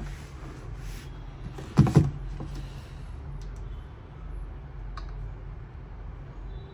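Phone handling noise over a steady low hum: a loud bump about two seconds in and a faint click near the five-second mark.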